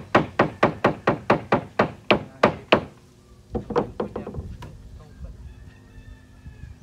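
Hammer driving nails into wooden floor framing: a quick run of about a dozen strikes, about four a second, then a few lighter blows after a short pause.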